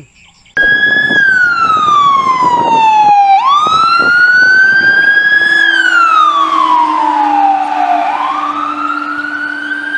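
Fire engine siren wailing in slow, long falling and rising sweeps that start about half a second in, with a quick upward jump twice.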